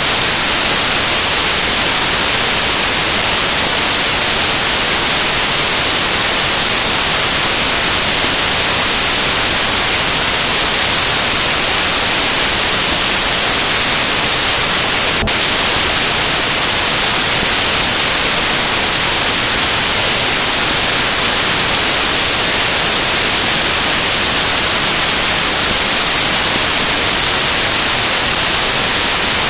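Loud, steady static hiss like white noise, with no music or voices, brighter in the treble; a single click about halfway through.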